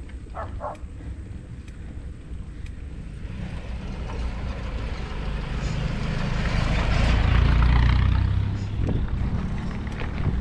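Motorcycle engine running steadily on the move, with wind and road noise that swells to a loud peak a few seconds in and then eases off. A dog barks briefly at the very start.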